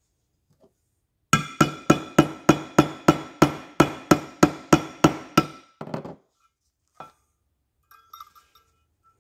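About fifteen quick, ringing hammer taps, three or four a second, driving the retaining pin into a small-block Chevy oil pump body to hold the spool valve spring in place. A few lighter metal clinks of small parts being handled follow near the end.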